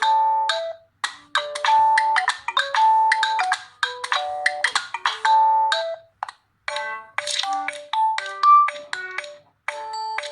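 Nokia G20 smartphone ringtones playing: a melody of short, bright pitched notes that breaks off about six seconds in, after which a different ringtone melody begins.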